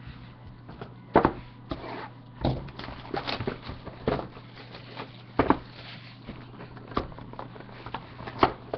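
Trading-card boxes handled on a desk: irregular taps, knocks and rustles of cardboard and foil as a box is picked up, set down and opened.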